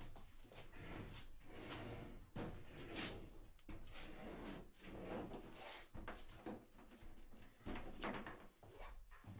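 Washing machine being pushed and shuffled across the kitchen floor by hand: a run of irregular scrapes and knocks from its feet and cabinet, with a sharp knock at the start.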